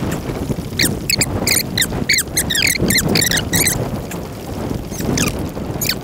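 Wind buffeting the microphone and choppy water against a fishing kayak, with a quick run of short, high squeaks, several a second, from about a second in to past the middle.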